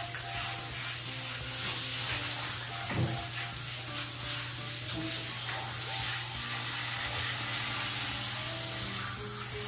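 Handheld shower head spraying water onto a large dog's wet coat, a steady hiss.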